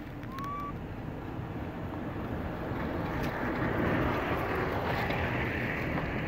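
A steady rushing noise that swells about halfway through and stays loud, with one short rising squeak about half a second in.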